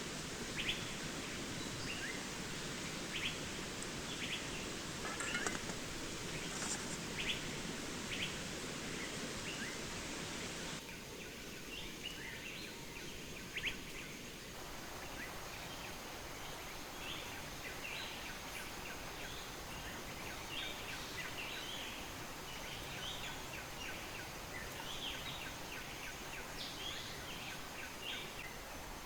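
Small birds chirping in short, repeated calls over a steady rushing background noise; the background shifts abruptly about eleven seconds in.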